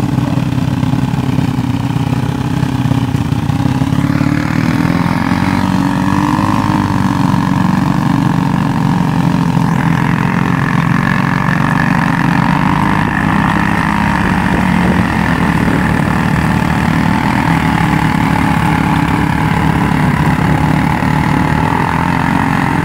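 Yamaha Raptor 350 quad's single-cylinder four-stroke engine running at fairly steady revs as the quad ploughs along a shallow stream, its wheels churning and splashing through the water.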